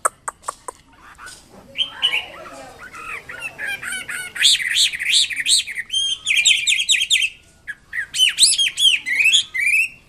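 Chinese hwamei singing a varied song: rapid runs of repeated whistled notes rising and falling in pitch, with a short break about three-quarters of the way through. A few sharp clicks come just before the song starts.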